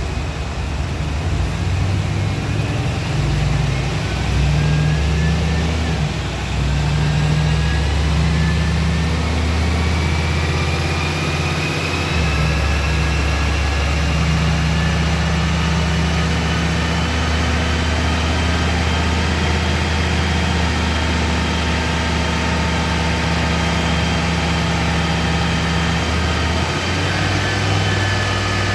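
Turbocharged 5.3-litre V8 running steadily on a chassis dyno, its low note shifting in steps a few times, with a thin whine that climbs slowly in pitch.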